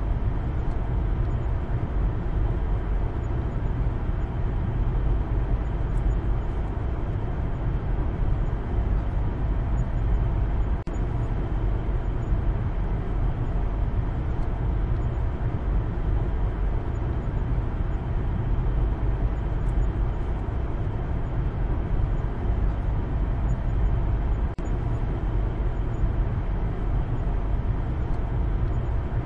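Steady low rumble of road and engine noise inside the cabin of a Maruti Suzuki Baleno on the move.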